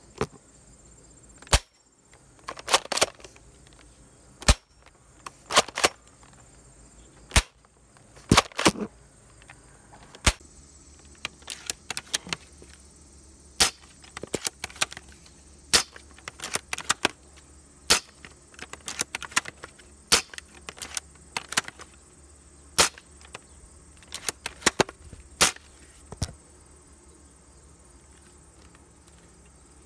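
Airsoft guns firing, a pump-action shotgun and a scoped bolt-action rifle: many sharp snapping shots at irregular intervals, some in quick clusters with the clack of working the pump or bolt between them, dying away near the end.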